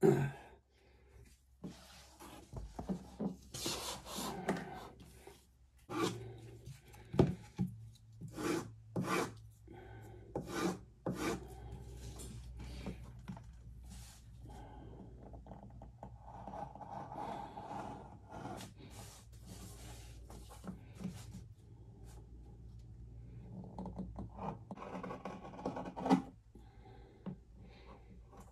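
Hand knife cutting through thick 8–10 oz English bridle leather on a cutting mat: irregular scraping strokes of the blade, with sharp knocks and rustles as the stiff hide is handled and shifted.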